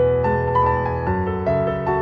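Piano music: a melody of struck notes, one after another, over held chords.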